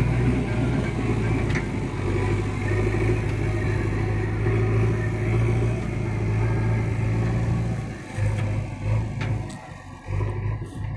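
Diesel engine running steadily with a deep hum, its sound breaking into uneven pulses about eight seconds in.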